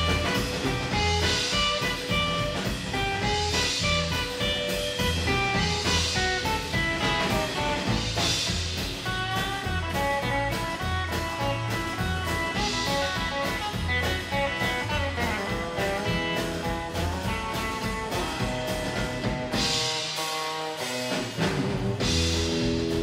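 Live rockabilly band playing an instrumental break between verses: a melodic guitar lead over upright bass, drums and strummed acoustic guitar. The bass drops out for about a second near the end before the full band comes back in.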